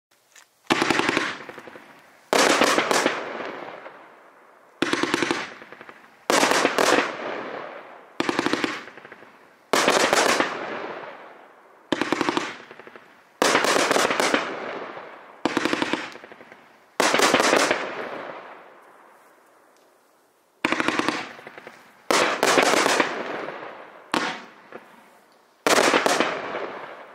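A 42-shot, 1.2-inch consumer fireworks cake firing its Nishiki willow shells one after another. Each shot is a sharp burst that fades over a second or so, coming about every one to two seconds, with a short pause about two-thirds of the way through.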